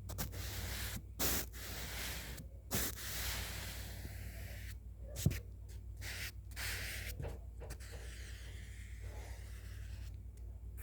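ASMR brush strokes: a small detail brush swept repeatedly across the microphone, giving a series of soft scratchy swishes. A single sharp click sounds about five seconds in.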